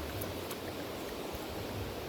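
A river flowing: a steady rushing of water.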